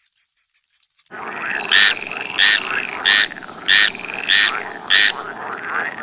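Frog calling in a chorus: six loud, short croaks evenly spaced about two-thirds of a second apart, over softer calls from other frogs. Before them, a rapid high-pitched rattle cuts off suddenly about a second in.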